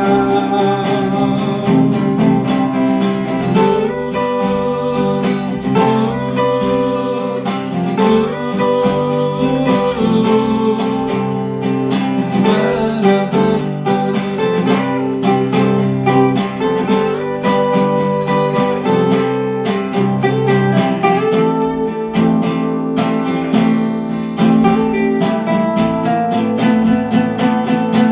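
Instrumental break in a live song: guitar played with a band, held melodic notes over a full accompaniment, and no singing.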